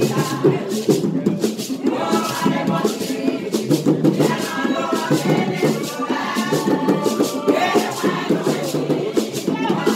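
Church choir of women singing together in phrases, with hand-clapping and a shaker rattling a steady beat.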